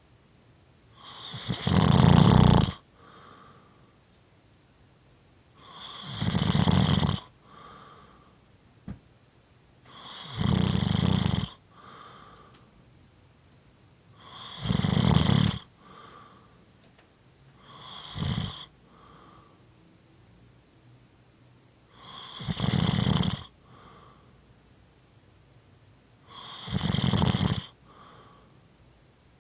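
Snoring: seven loud, rasping snores about four seconds apart, one of them short, each followed by a softer breath.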